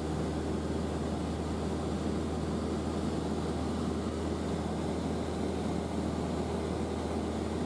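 Steady drone of a Reims Cessna 152's four-cylinder Lycoming O-235 engine and propeller in cruise, heard from inside the cabin.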